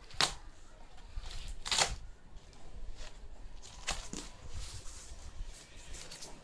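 Cardboard carton flaps and packing wrap being handled, making a few short rustling scrapes, the loudest about two seconds in.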